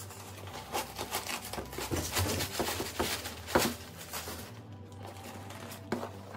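Crumpled packing paper rustling and crinkling in quick irregular bursts as it is pulled out of a new backpack, with music underneath.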